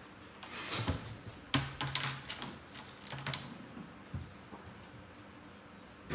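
Red plastic laundry basket knocking and scraping on the floor as a young macaque climbs onto it and rocks it: a quick run of light clatters over the first few seconds, then it falls quieter.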